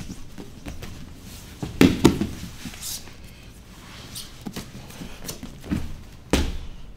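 Two grapplers scrambling on a foam grappling mat: bodies, hands and knees shuffling and sliding on the mat, with a few sudden thumps of bodies landing, the loudest about two seconds in and near the end.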